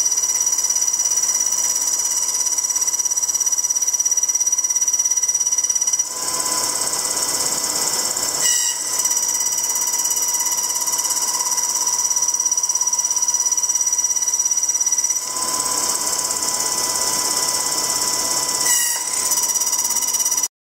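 High-speed electric spindle of a robot-mounted trochoidal drilling head running with a steady high-pitched whine. A louder rush of hiss joins it twice, for a few seconds each, and the sound cuts off abruptly near the end.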